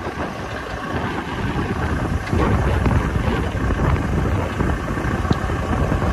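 Diesel engines of a Komatsu excavator at work and a dump truck beside it, a steady rumble that gets louder about two seconds in, with wind buffeting the microphone.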